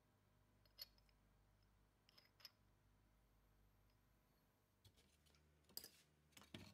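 Near silence broken by a few faint clicks and taps of a metal hole saw, a glass bottle and a pine board being handled, the loudest about six seconds in.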